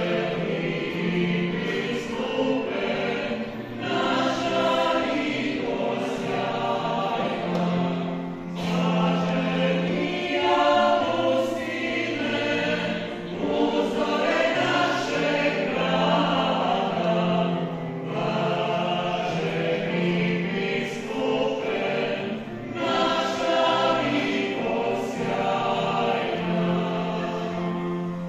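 Klapa and mixed choir singing a Croatian hymn together, the voices holding long notes and moving from phrase to phrase.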